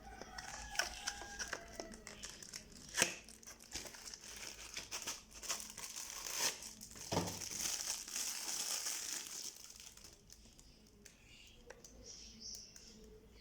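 Toy packaging crinkling and tearing as it is unwrapped, with scattered sharp clicks and taps; the crinkling is busiest from about six to nine seconds in, then dies down.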